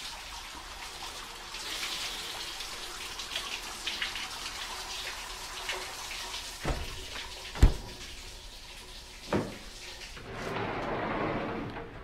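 Water running and splashing as a steady hiss, with three knocks in the second half, the middle one the loudest, and the hiss swelling briefly near the end.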